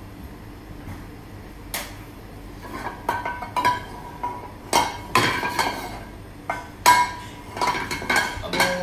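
Metal frying pan knocking and scraping on the gas stove's grate as it is moved and tilted to spread the oil, the pan ringing after the knocks. One knock about two seconds in, then a run of clanks from about three seconds on.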